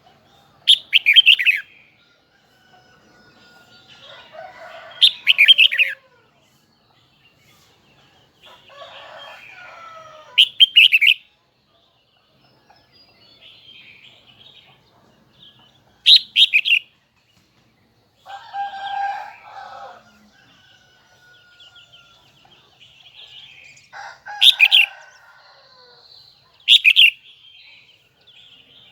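Red-whiskered bulbul singing: six short, loud, high song phrases a few seconds apart, with fainter, lower bird calls in between.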